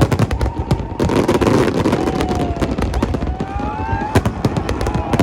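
Fireworks display going off: a dense run of bangs and crackling over a steady rumble, with a few thin whistling tones that rise and fall.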